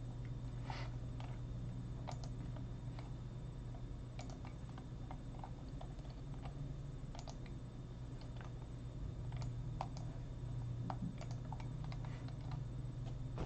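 Faint, irregular computer keyboard and mouse clicks over a steady low hum.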